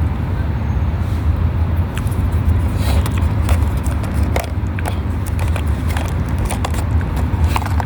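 Steady low rumble of outdoor background noise, with scattered sharp clicks and light rustles.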